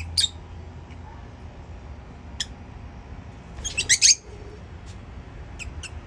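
Lovebirds calling with short, sharp, high-pitched chirps. The loudest part is a quick burst of chirps about four seconds in, with single chirps scattered before and after. A steady low hum runs underneath.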